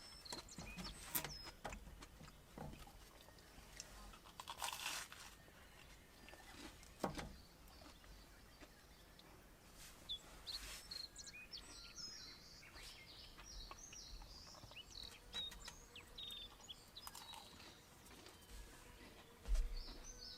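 Scattered small clicks and crunches, with a cluster of small birds chirping about ten seconds in and a dull thump near the end.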